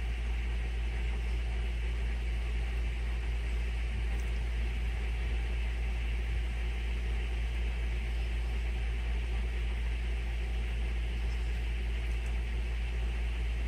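Steady low machine hum, even and unchanging throughout.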